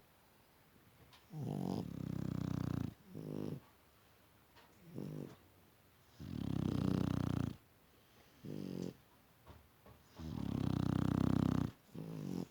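Two Shar-Pei dogs snoring together. There are three long snores about four seconds apart, with shorter snores in between.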